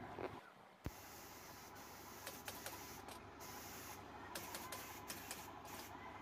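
Scattered light clicks and taps over a faint steady workshop background as the quilted upholstered headboard panel is handled and fitted against the plywood bed base, with one sharper knock about a second in.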